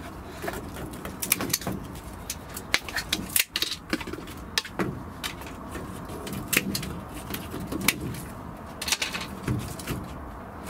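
Pruning secateurs snipping and handling woody grapevine canes: irregular sharp clicks mixed with the rustle of stems and twigs being moved.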